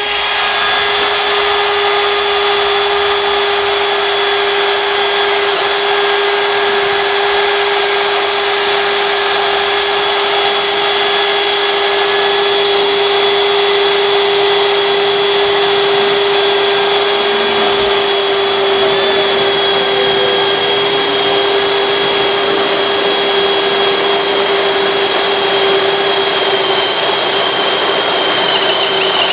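Milwaukee Fuel cordless drills running steadily under load with a continuous motor whine while 5/8-inch twist bits bore through steel square tubing.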